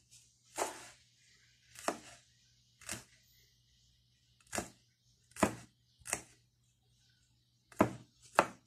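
Kitchen knife chopping garlic cloves on a wooden cutting board: about eight separate, unevenly spaced strokes, roughly one a second.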